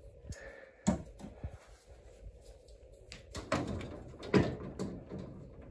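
Several knocks and clatters from the parts of a large flat-screen TV being handled and moved: one just under a second in, then a cluster from about three and a half seconds in, the loudest near four and a half seconds.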